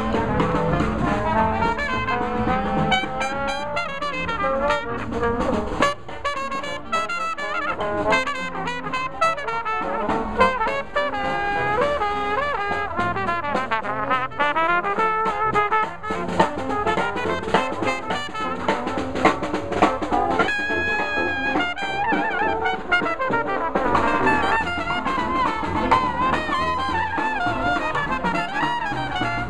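New Orleans-style brass band playing live jazz: trumpets, trombone, saxophones and sousaphone over a marching snare drum. About two-thirds of the way through, a long high note is held.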